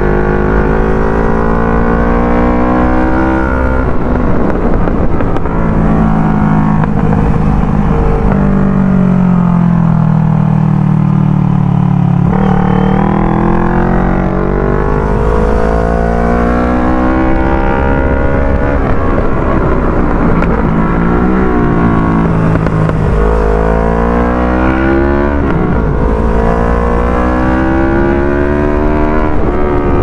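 CFMOTO NK400's parallel-twin engine through a Yoshimura Alpha R77 aftermarket exhaust under hard riding: revs climb repeatedly through the gears, with sudden drops at each upshift. It winds down for a few seconds near the middle as the throttle is eased off, then pulls up again.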